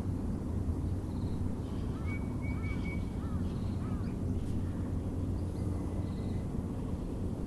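Several birds calling over a steady low background rumble. A short high note repeats about every two and a half seconds, and from about two to four seconds in there is a run of five quick arched notes with a flat whistled tone above them.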